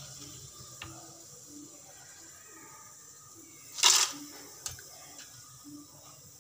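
Tapioca chip slices frying quietly in hot oil, the sizzle now low, which is the sign that the chips are cooked through. About four seconds in, a short metal clatter from the wire spider skimmer, with a few light clicks around it.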